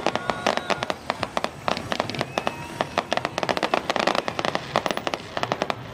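Fireworks going off in rapid, continuous volleys of sharp bangs and crackles, with a few short whistles among them.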